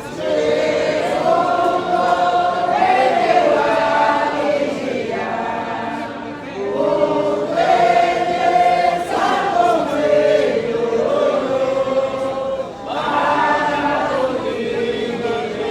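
A group of voices singing a hymn together in long held phrases, with brief pauses between phrases about six and thirteen seconds in.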